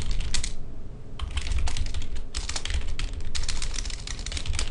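Typing on a computer keyboard: quick runs of keystrokes broken by short pauses.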